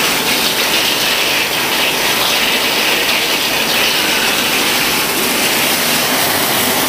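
Steady rushing of water draining through a siphonic rainwater roof outlet into its discharge pipe, the pipe running full bore now that the siphonic action has primed.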